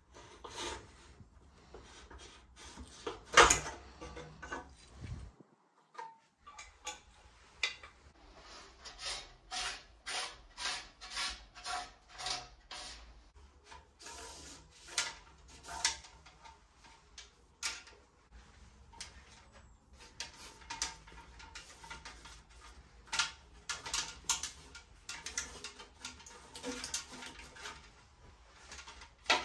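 Scattered clicks, knocks and rubbing of hands working bicycle parts: headset pieces lifted off the frame's head tube, then a brake hose and foam sleeve pushed and pulled through the frame. One loud knock about three seconds in.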